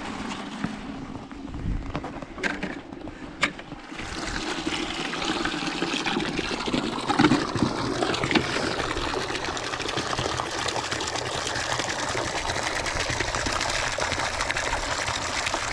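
Water gushing from a yard hydrant's spout into a plastic five-gallon bucket, a steady splashing pour. Two sharp knocks come before the steady flow starts, about four seconds in.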